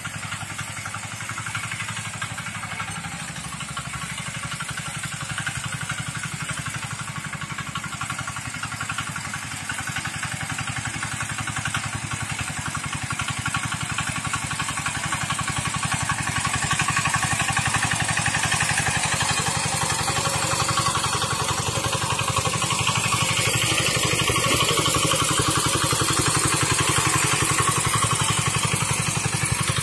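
Field Marshal 5 hp single-cylinder diesel engine of a homemade walk-behind mini tractor running steadily under load as it pulls a furrowing plough through soil. The engine grows louder about halfway through.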